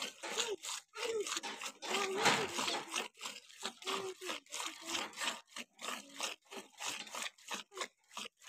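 Hand-milking of a cow: jets of milk squirting into milk already in a steel pail, a steady rhythm of short hissing squirts about three or four a second.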